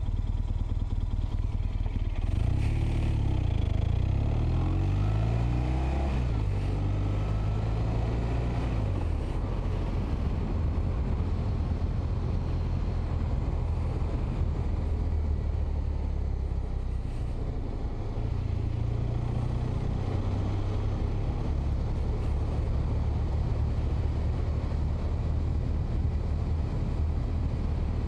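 Motorcycle engine running under way, its pitch rising again and again as it accelerates through the gears about two to nine seconds in, then settling into steadier cruising over a constant rush of road and wind noise.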